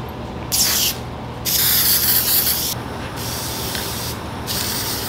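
Aerosol can of spray headliner adhesive hissing in four bursts: a short one, then three of a second or more each. The can is nearly empty, and its spray pattern is getting uneven.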